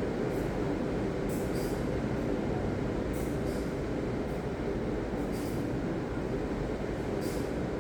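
Ocean surf: a steady low rumble of breaking waves, with brief faint hisses coming and going a few times.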